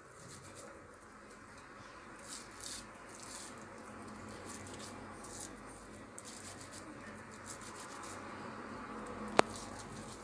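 Faint soft squishing and patting of hands working seasoned ground-meat kefta mixture and shaping it into long fingers. One sharp click about nine seconds in.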